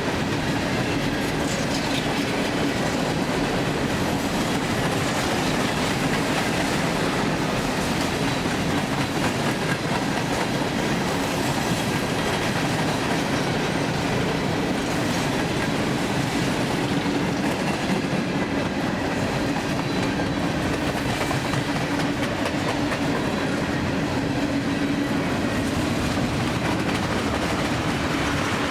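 Long CSX freight train of mostly empty coal and grain cars rolling steadily past, with the continuous noise of wheels on rail and a steady hum underneath.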